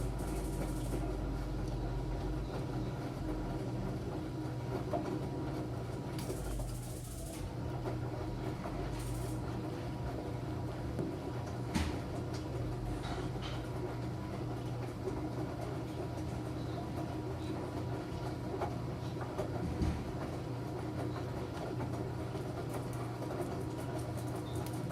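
Enxuta Júnior 2 kg washing machine running: a steady motor hum with a low rumble and a few faint clicks.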